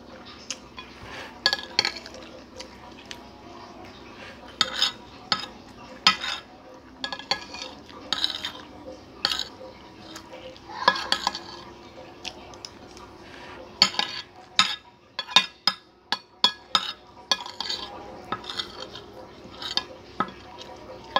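Metal spoon and fork scraping and clinking against a plate while scooping up rice, in irregular sharp clinks and scrapes.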